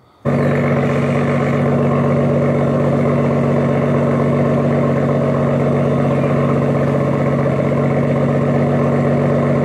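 BMW M140i's 3.0-litre turbocharged straight-six running steadily at idle, heard at the tailpipes, cutting in suddenly. There is no rattle from the exhaust valves in the rear silencer now that the new valve actuator is fitted.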